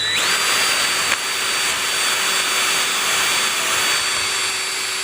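Electric drill spinning up and running steadily as a bit bores out a stripped thread hole in a steel spindle to make room for a helicoil insert. The motor's whine rises at the start, then holds at one steady pitch.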